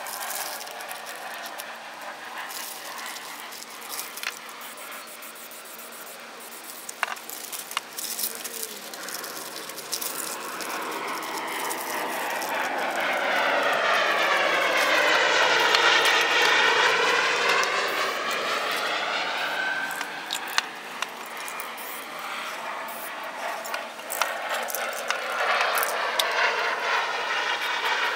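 An aircraft passing overhead: its noise swells to a peak about halfway through and then fades, its tone sweeping down and back up as it passes, and a second swell builds near the end. Scattered light clicks and rattles sound throughout.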